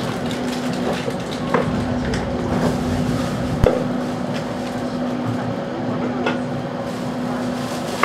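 Inside a 485 series train car creeping along a station platform as it pulls in: a steady hum from the car with scattered knocks and clicks from the running gear and body, the sharpest about three and a half seconds in.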